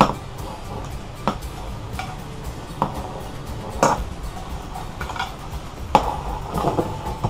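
Metal kitchen tongs clinking and scraping against a frying pan as crayfish are lifted out of a cream sauce: a series of sharp clinks at uneven intervals, about seven in all.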